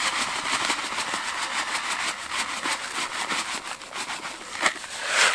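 Dry groundbait mix poured from a bag into a plastic bucket: a steady grainy crackle of falling crumbs, a little louder near the end. More dry mix is being added to stiffen a feeder groundbait that has come out too wet.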